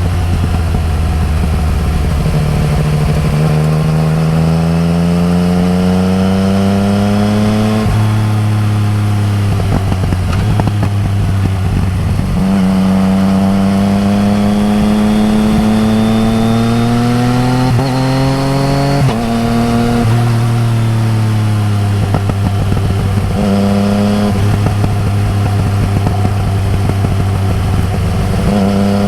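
Yamaha MT-09 Tracer's three-cylinder engine through an Akrapovič exhaust while riding: the note rises in pitch as the bike accelerates, drops sharply at each gear change, and falls away for a few seconds as it slows before pulling again.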